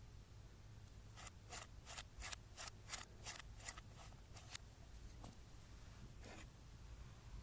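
Slime being squeezed and pressed by hand: a quick run of short crackling squelches, about three a second, then one more a little later.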